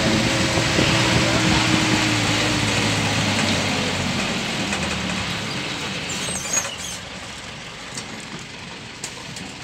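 A motor vehicle engine running steadily with road noise, fading away over the first several seconds. A few faint clicks follow in the quieter background.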